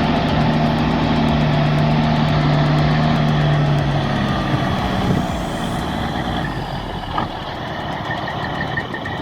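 Heavy truck engine running hard under load at a steady pitch, then easing off about halfway through. Near the end there is an intermittent high beeping.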